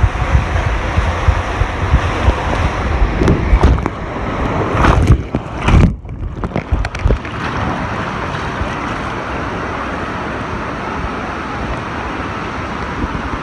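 Rushing water and wind buffeting the microphone on a water-slide ride, with rough knocks, a loud hit and a sudden brief drop in sound about six seconds in, then an even, steady rush of water.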